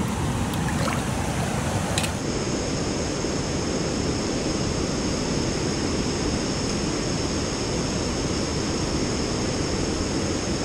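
Steady rushing of a rocky stream's rapids and small waterfall, an even roar of white water with no break.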